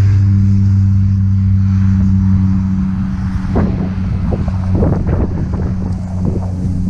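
A steady low droning hum, engine-like, runs throughout. From about three and a half seconds in come irregular rustling and flapping bursts as a parachute canopy comes down and collapses on landing, with wind buffeting the microphone.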